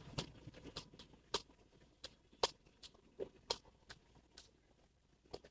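About a dozen faint, sharp clicks and taps at uneven intervals, the loudest a little past two seconds and again about three and a half seconds in.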